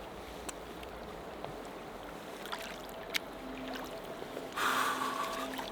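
River current rushing steadily, with a brief louder rush of noise about four and a half seconds in.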